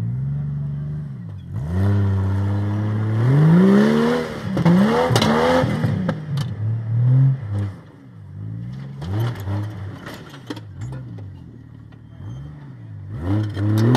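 Jeep rock crawler's engine revving in repeated blips under load as it climbs the obstacles, the pitch rising and falling with each rev. The revs are loudest in the first half, with a few sharp knocks about five seconds in.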